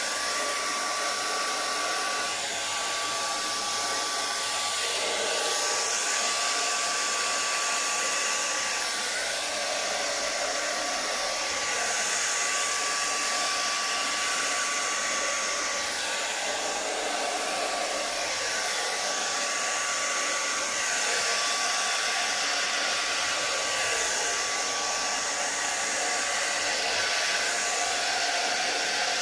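Hand-held hair dryer running on a steady rush of air, with a thin steady whine from its motor. The sound swells and eases a little as the dryer is moved about.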